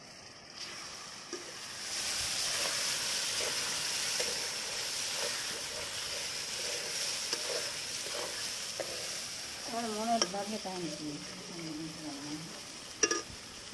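Yellow spice mixture frying in hot oil in a steel wok, sizzling and being stirred with a long metal spatula. The sizzle grows louder about two seconds in, and there are sharp clinks of metal on the pan near the end.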